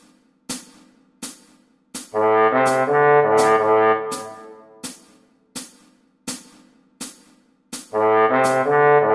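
Slide trombone playing a short phrase of low notes about two seconds in, and starting the next phrase near the end, over a steady click about every three-quarters of a second that keeps the beat. Between the phrases only the clicks are heard.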